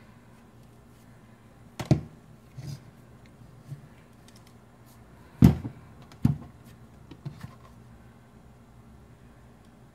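A camo-taped rifle scope being handled and set down on a work-table cutting mat: a handful of dull knocks, three of them clear, the loudest about five and a half seconds in, with lighter taps between.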